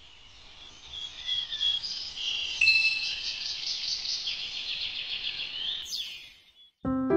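Birdsong sound effect: a busy twittering of small birds, with high chirps and fast trills. It ends in a quick falling whistle, and a few piano notes start just before the end.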